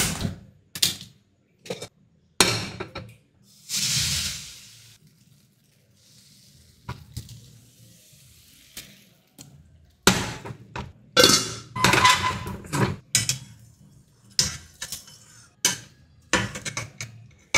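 Steel kitchen utensils clinking and scraping, with a steel ladle against steel pots and pans. About four seconds in there is a short rush of noise as the gas stove burner is lit, then a faint steady flame hiss. From about ten seconds comes a dense run of clinks and scrapes.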